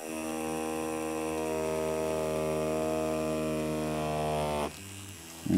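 Tattoo machine running with a steady electric buzz while pulling a line on paper, cutting off about four and a half seconds in.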